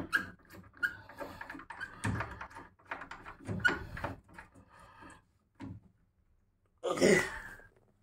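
Handling noise from a portable air conditioner's rubber drain plug and the unit's plastic casing: irregular knocks, rubs and scrapes as the plug is worked, with a short, louder burst of noise about seven seconds in.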